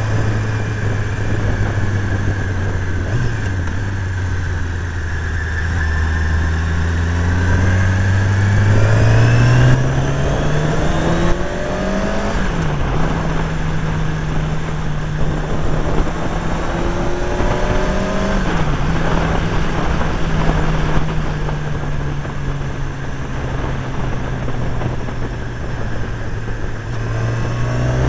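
Motorcycle engine running under rushing wind noise. Its pitch climbs as it speeds up about a third of the way in, then holds steady.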